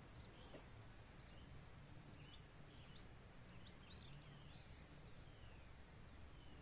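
Faint outdoor ambience: a steady high insect hum with a few short, falling bird chirps over a low background hiss.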